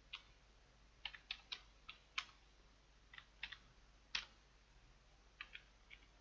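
Computer keyboard being typed on: faint, irregular keystroke clicks in small clusters with short pauses between them. The loudest keystroke comes about four seconds in.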